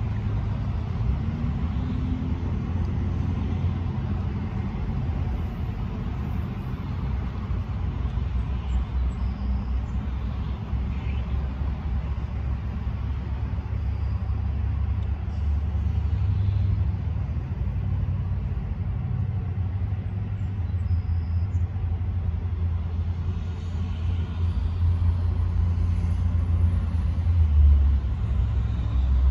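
Steady low rumble of road traffic passing along the road above, growing a little louder near the end.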